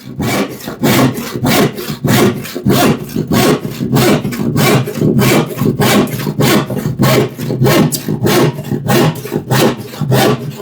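Rip-sharpened hand saw cutting across the grain of plywood, in a steady run of even sawing strokes, about three to four a second.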